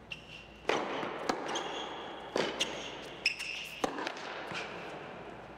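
Several sharp tennis-ball knocks and brief high sneaker squeaks on an indoor hard court, each knock followed by a short echo in the hall.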